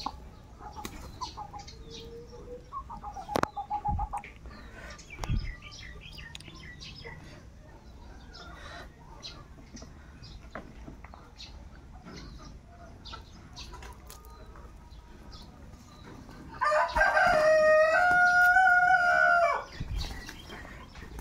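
Rooster crowing once near the end, a loud call of about three seconds that is the loudest sound here; before it, chickens clucking and the wings of feeding pigeons flapping now and then.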